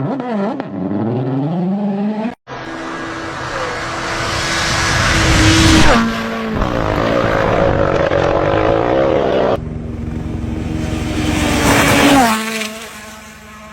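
Rally cars at full throttle passing by in separate cuts. Each engine note grows louder as the car approaches, then drops sharply in pitch as it goes past, and the last one fades away.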